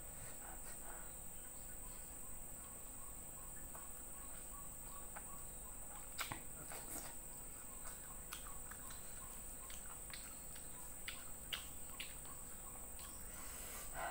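Close-up eating sounds: wet chewing, lip smacks and scattered small clicks from mouth and fingers while eating rice and fried fish by hand, busiest around the middle and again later. Under it, a steady high insect drone.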